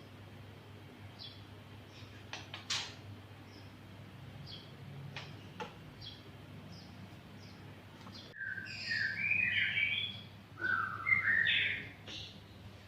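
Pet songbirds chirping: scattered short, sharp chirps, then about eight seconds in a louder run of quick warbling notes lasting a few seconds.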